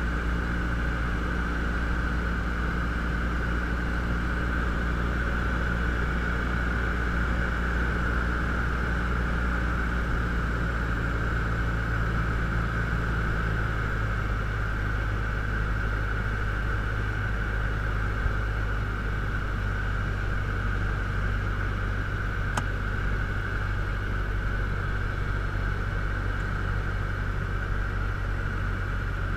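Robin DR400 light aircraft's piston engine and propeller droning steadily, heard from inside the cockpit. The engine note changes about halfway through, and there is a faint click near the end.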